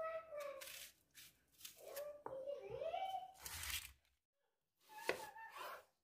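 A knife peels the dry, papery skin off an onion, giving crisp tearing and crackling with squeaks as the blade drags over the onion. After a brief silence about four seconds in comes a squeak and a sharp knock as the onion is cut in half on a wooden board.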